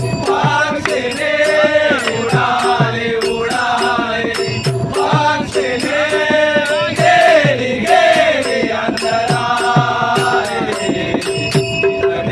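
Singing of a Marathi devotional bhajan, voices gliding through a melody over a steady rattling percussion beat and a held tone.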